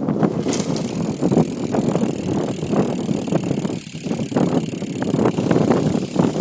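Eastern Nighttrain dirt jump bike rolling, with a run of irregular knocks and rattles and a hiss that comes in about half a second in.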